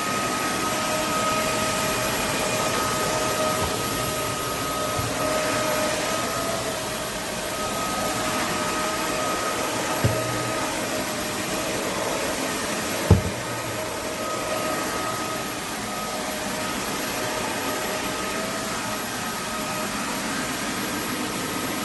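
Roborock F25 RT cordless wet-dry floor cleaner running in max mode: a steady rush of suction with a steady motor whine. There is a brief knock about ten seconds in and a sharper one about three seconds later.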